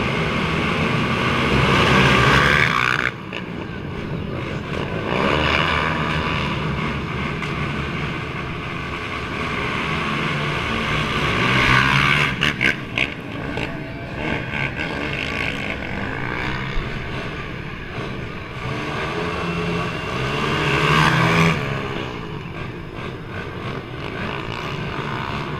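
Race ATVs with single-cylinder four-stroke engines revving hard and passing close by one after another. The loudest passes come about two seconds in, around twelve seconds in and near twenty-one seconds, each rising then falling away in pitch.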